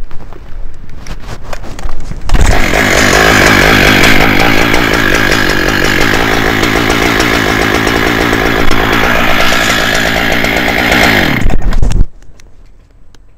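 Two-stroke chainsaw starting about two seconds in and running at high revs for about ten seconds, its pitch wavering as it cuts through a limb, then cutting off suddenly near the end. A few light knocks come before it.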